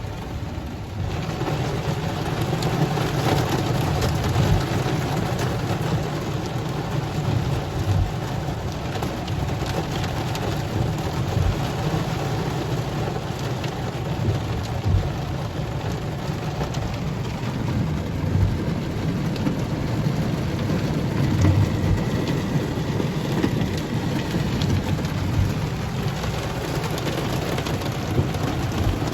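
Steady rain, many separate drops striking a surface, with a low rumble underneath.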